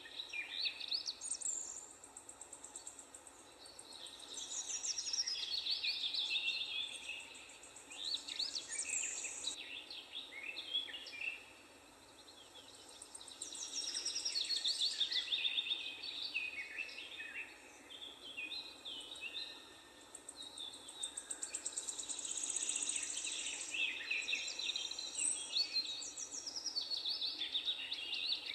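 Several birds singing at once in a park, a dense chorus of quick high chirps and trills that swells and fades every few seconds, over a faint steady background hiss.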